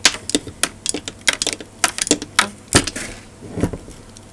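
Small steel ball bearings clicking against the metal bearing race of a Yaesu G-1000DXA rotator as they are picked out one by one with a screwdriver. Sharp, irregular clicks, several a second, with a softer scrape about three seconds in.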